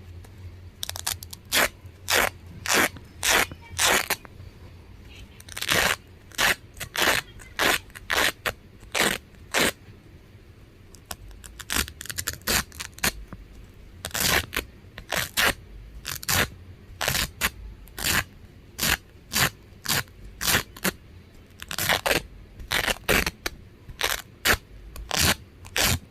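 Velcro (hook-and-loop fastener) being pulled apart over and over: short, crunchy rips in quick runs of about two a second, with brief pauses between runs, the longest about ten seconds in.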